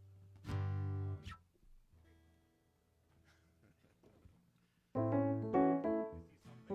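Keyboard and guitar noodling between songs: a short chord about half a second in, a near-quiet stretch with a few faint notes, then a run of loud notes from about five seconds in.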